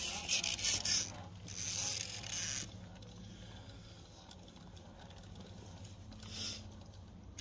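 Electric RC rock crawler driving in short spurts: its motor and gears whir and its tyres scrape on granite, for the first two and a half seconds and again briefly past six seconds.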